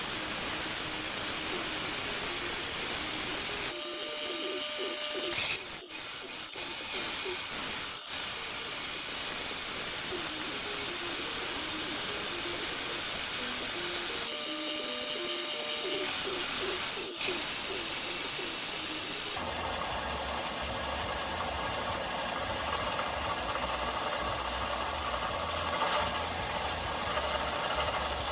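Belt sander running with a steady hissing grind as a metal exhaust manifold's turbo flange is held flat on the belt. The sound changes character a few times, and a low hum joins it from about twenty seconds in.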